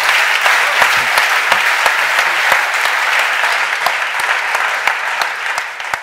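Audience applause: many hands clapping in a dense, even clatter that eases off a little near the end.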